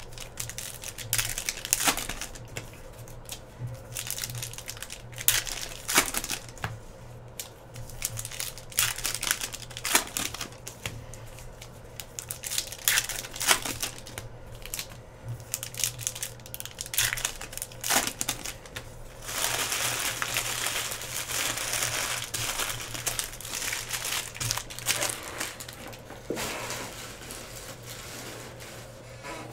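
Paper trading-card pack wrappers crinkling as they are torn open and handled, with sharp clicks and crackles of cards being tapped into a stack; a longer, denser stretch of crinkling about twenty seconds in. A faint low steady hum runs underneath.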